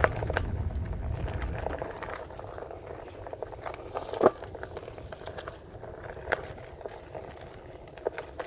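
Onewheel Pint X rolling along a dirt trail: a steady crackle of dirt and grit under the tyre with scattered sharp clicks, one louder knock about four seconds in. A low rumble fades away over the first two seconds.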